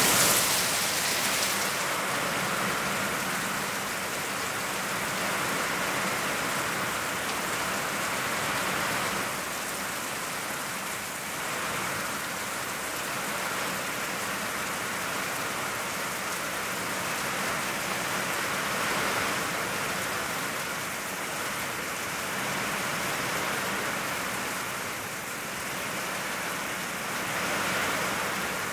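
Heavy, steady rain falling on the ground, trees and a parked vehicle, briefly louder at the very start and again near the end.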